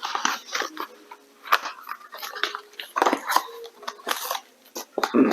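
Packaging rustling and crinkling in irregular bursts as a graphics card box is opened and its contents handled.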